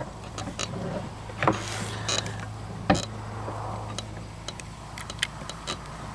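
Light metallic clicks and knocks from a .38 Special revolver being handled and loaded, with a sharper knock about three seconds in and a few small ticks near the end. A steady low hum runs underneath.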